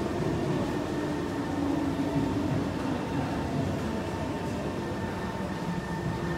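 Kawasaki C151A electric multiple unit train running, a steady rumble with a low motor hum that dips slightly in pitch about two seconds in.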